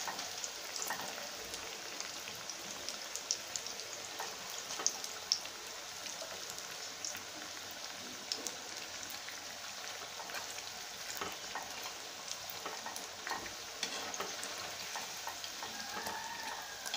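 Battered sweet potato bondas deep-frying in hot oil: a steady sizzle with scattered crackles and pops.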